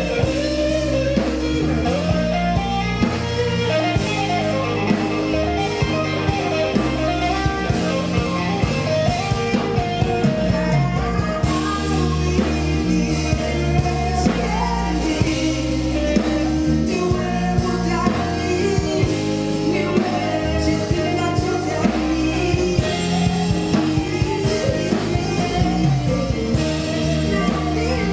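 Live afro-soul band playing: a woman singing over guitar, bass and drums.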